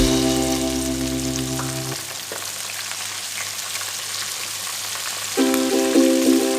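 Chicken skin frying in hot oil with a steady sizzle. Background music stops about two seconds in and comes back near the end.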